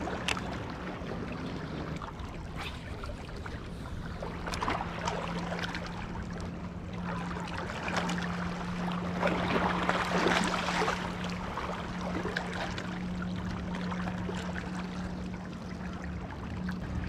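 Small waves lapping and splashing against a rocky lake shore, louder about ten seconds in, over the steady low hum of a motorboat out on the lake.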